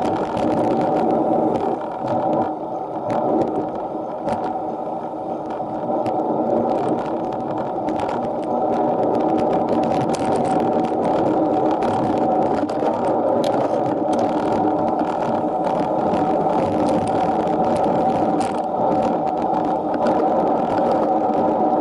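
Steady riding noise of a minivelo road bike climbing, picked up by an action camera: a constant rumble of road and drivetrain vibration with many small clicks and rattles. It eases a little for a few seconds near the start.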